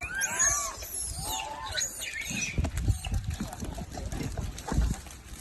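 Several short squeaks from a small animal, each rising then falling, bunched in the first two seconds with one more near the end, over low knocks and rustling.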